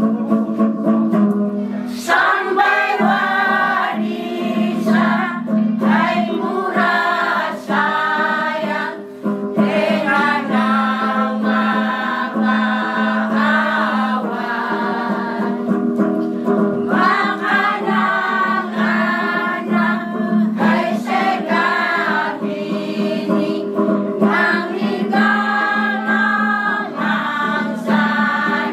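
Elderly mixed choir singing a hymn in the Klamu language, many voices together, the fuller singing coming in about two seconds in.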